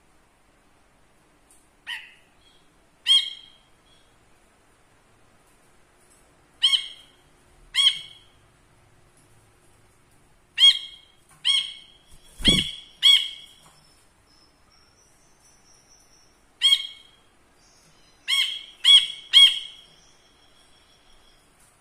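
A caged brinji kelabu bulbul calling in short, clipped notes, some single and some in quick runs of two or three, with gaps of a second or more between them. A knock sounds about halfway through.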